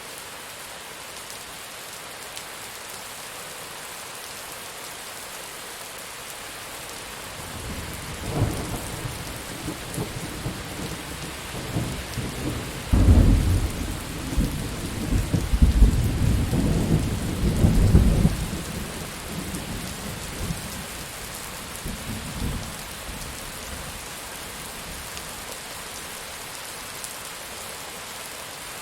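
Steady rain falling, with a long roll of thunder that builds about a quarter of the way in, rumbles loudest through the middle and dies away well before the end.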